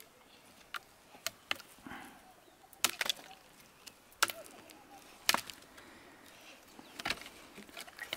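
Firewood being chopped by hand with a blade: sharp, single strikes into wood at uneven intervals, roughly one a second, the heaviest in the middle, with lighter knocks of wood pieces between them.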